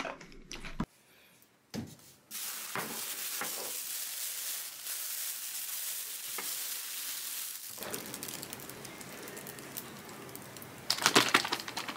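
A plastic bag crinkling and rustling as a slice of chocolate cake is squeezed out of it onto a small ceramic dish. A short burst of loud clicks and clatter comes near the end.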